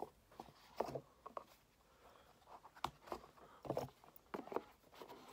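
Irregular light taps and rustles of a small product box and the bottle and cloth inside it being handled and packed back together.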